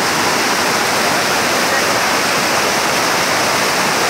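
Water pouring over a tank's overflow weir and churning in the channel below: a steady, loud rush of white water, the sign of the tank full and spilling over.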